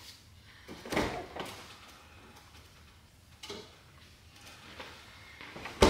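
Household handling noises: a knock about a second in, a lighter one in the middle, and a sharper, louder knock near the end.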